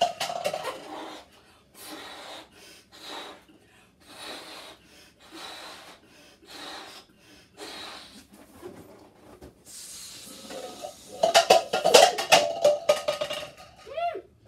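A balloon being blown up by mouth in a series of hard puffs of breath, each with a quick breathy inhale between. About eleven seconds in, a woman's loud excited voice cuts in, and a short squeal that dips and rises comes near the end.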